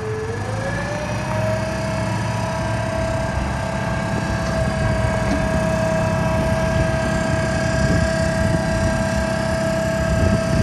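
Digger derrick truck's 6.7L Cummins diesel running, with a steady whine from the hydraulic system as the boom is worked. The whine rises in pitch about half a second in, then holds steady over the engine rumble.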